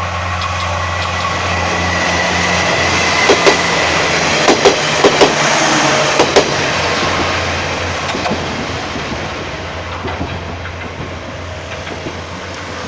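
A JR Kashii Line train passing over a level crossing: a steady rumble that builds and then fades, with wheels knocking over rail joints in quick pairs in the middle, as each bogie crosses.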